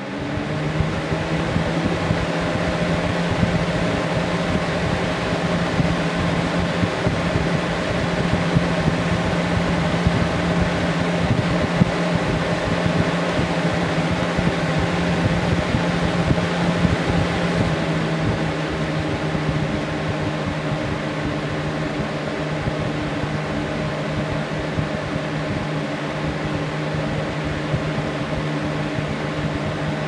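2008 Galaxy box fan running: a steady rush of air over a low motor hum, coming up to speed in the first second. A little over halfway through, the hum drops slightly in pitch and the sound gets a bit quieter.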